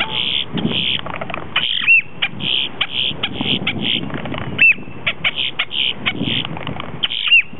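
Male boat-tailed grackle singing its display song: a run of harsh, dry clicks and rattles broken three times by a short whistle that rises and falls.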